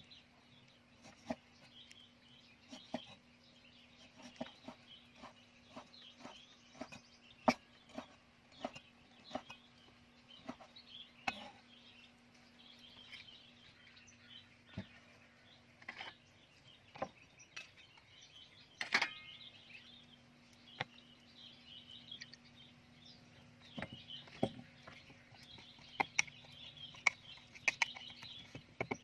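Birds chirping in the background, with a series of sharp, irregular knocks and clicks and a faint steady hum.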